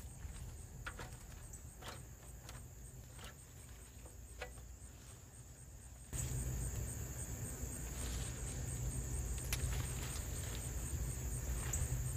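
Crickets chirping in a steady high trill, with a few light clicks and rustles among the plants. About halfway through, the background gets suddenly louder, with more low rumble.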